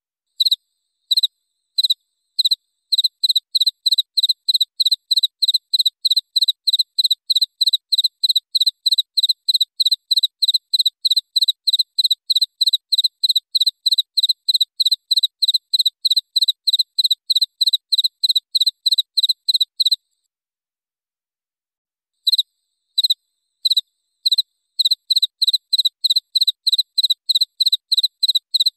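Cricket chirping: a steady train of short, high chirps at about three a second, starting with a few spaced chirps. About two-thirds of the way in it stops for two seconds, then starts again slowly and picks back up to the same steady pace.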